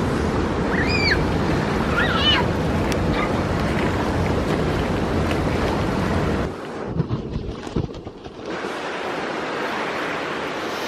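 Stream water rushing over rocks, a steady noisy rush. About six and a half seconds in it drops away briefly with a few knocks, then carries on quieter and thinner.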